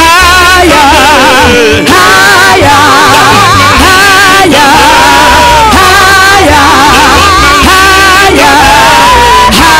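Live praise band, with saxophones and trumpet playing the melody over keyboard and bass. The held notes carry a wide vibrato.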